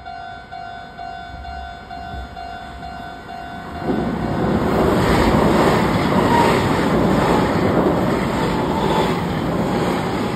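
A level crossing warning bell rings in steady pulses about twice a second. About four seconds in, an electric express train comes in loud and rumbles and clatters across a steel girder bridge, drowning out the bell.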